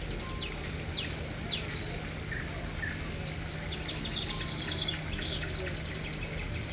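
Small birds chirping outdoors: a few quick high falling chirps in the first two seconds, then a dense high buzzy trill around the middle. A steady low hum runs underneath.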